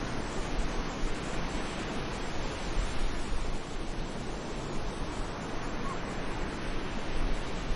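Sea surf washing steadily onto a beach, a continuous rushing noise with no distinct breaking crashes, mixed with wind buffeting the microphone as a low rumble.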